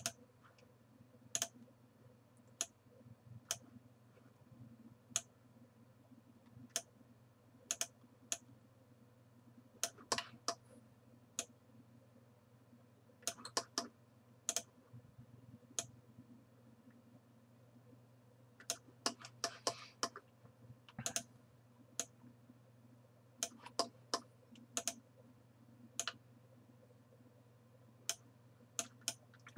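Computer mouse clicking, sharp single clicks and quick clusters at irregular intervals, while spline vertices are selected and dragged. A faint steady low hum runs underneath.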